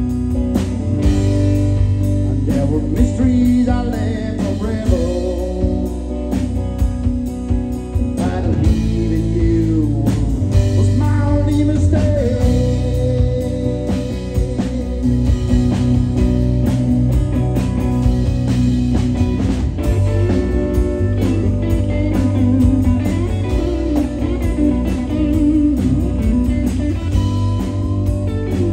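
Live blues-rock band playing an instrumental break: a lead electric guitar plays bending, gliding notes over rhythm guitar, bass and drums.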